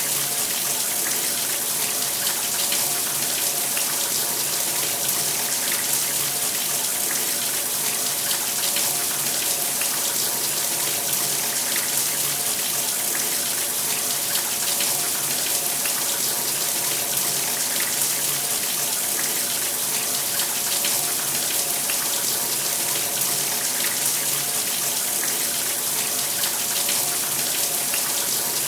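Shower running steadily, water spraying and splashing onto the tub or floor with a constant hiss and patter of droplets.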